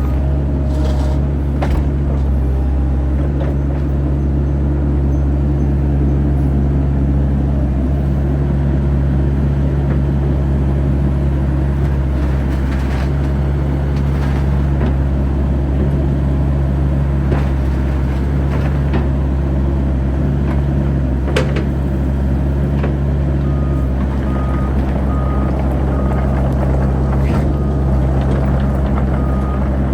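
Bobcat E85 midsize excavator's diesel engine running steadily while the machine is worked, with occasional knocks and clanks. A repeating warning beep sounds near the start and again from about two-thirds of the way in.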